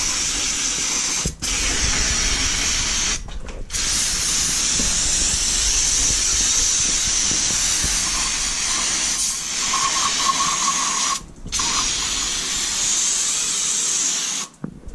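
Aerosol can of brake cleaner spraying in long hissing bursts to degrease metal parts. The spray pauses briefly three times and stops just before the end.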